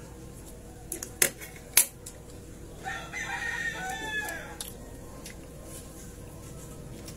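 A rooster crows once, a call of a bit under two seconds starting about three seconds in. Shortly before it come two sharp clinks of a utensil against a plate, the loudest sounds here.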